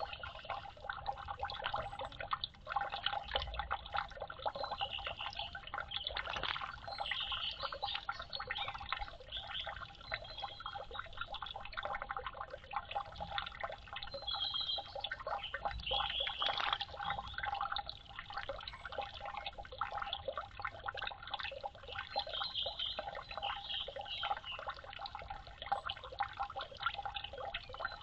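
Water trickling and dripping as a continuous busy patter of small drops.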